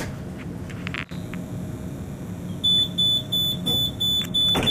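Tatra T3 tram's door warning signal beeping, a run of short high beeps about three a second, starting a little past halfway: the doors are about to close at a stop. A dull knock about a second in, over the low hum of the standing tram.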